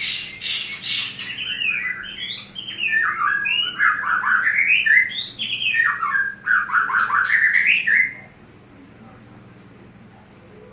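A songbird singing a fast, chattering, warbling song of quick rising and falling notes, which stops abruptly about eight seconds in. The song is offered as a sign that the bird is halfway into breeding condition.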